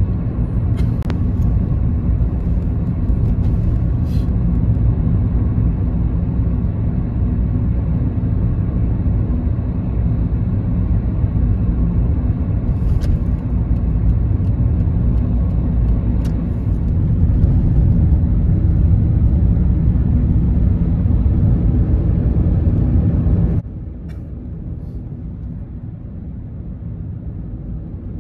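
Steady low vehicle rumble that drops suddenly to a quieter rumble about three-quarters of the way through.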